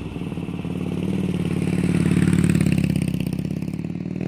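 Harley-Davidson V-twin motorcycle engine running with a rapid, even pulse, growing a little louder toward the middle and easing back near the end.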